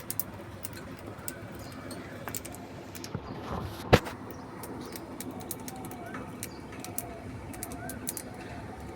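Pet budgerigar chattering softly, with short, faint chirps and wavering warbles, amid scattered small clicks. A single sharp click comes about four seconds in.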